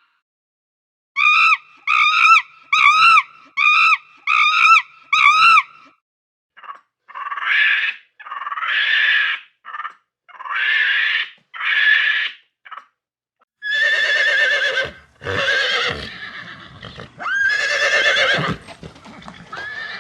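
Six short, evenly spaced animal calls, then a few longer calls, then a horse whinnying several times over the last six seconds.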